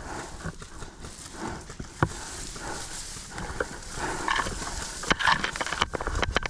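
Footsteps and gear rattling, with scattered sharp clicks and knocks that come thicker near the end, one hard snap about two seconds in.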